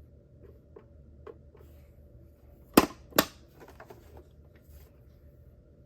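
A toy minicar being handled, with faint taps and two sharp plastic clicks about half a second apart near the middle.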